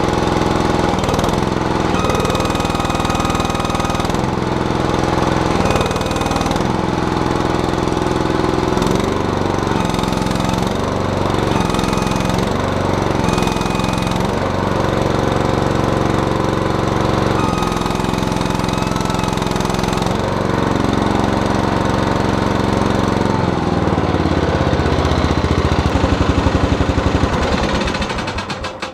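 Terramite backhoe's engine running under hydraulic load, its pitch dipping and recovering again and again as the hydraulics are pushed up against the relief valve during a pressure test, with a thin high whine coming and going over it. The owner is not sure whether the relief valve is kicking in.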